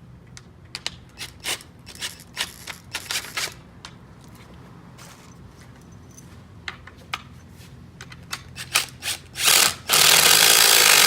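Metal clicks and clinks of bolts and washers being handled and started by hand, then a cordless impact driver runs loudly in a short burst and a sustained run near the end, driving the bolts home.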